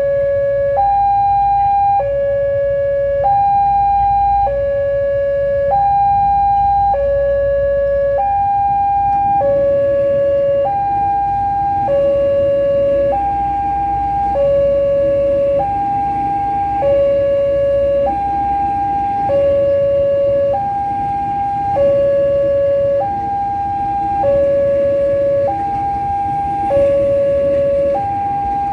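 Two-tone warning alarm switching between a high and a low tone about once a second, at a steady unchanging pitch, typical of a railway level-crossing signal sounding for an approaching train. A low rumble runs underneath.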